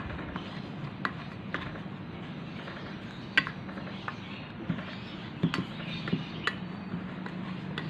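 Plastic spoon stirring damp powdered fishing bait in a stainless steel bowl: soft scraping with irregular sharp clicks as the spoon knocks the bowl, about six times.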